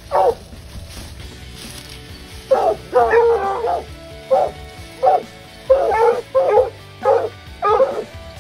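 Coonhound barking over and over in loud, short pitched bawls, with a quick run of barks about three seconds in. This is the bay of a hound at the tree it has run a raccoon up.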